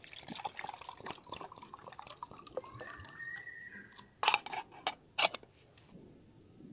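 Water poured from a plastic bottle into a titanium mug, trickling and splashing against the metal for about four seconds. Then a few sharp clicks in quick succession.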